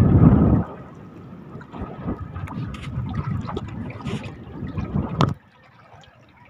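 Strong wind buffeting the microphone, loudest in the first half second, over choppy sea water splashing and lapping against a small boat. The sound ends in a louder splash about five seconds in, then cuts off sharply to a much quieter background.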